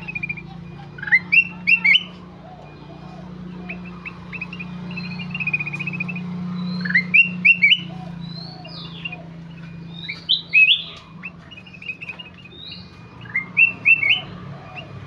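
Kutilang emas bulbul singing vigorously: groups of quick rising whistled notes about every three to four seconds, with softer chattering notes between. A steady low hum runs underneath.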